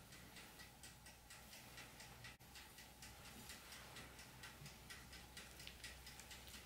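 Near silence with faint, irregular crackling ticks, several a second, from hands rubbing and mixing crumbly butter-and-flour dough in a bowl.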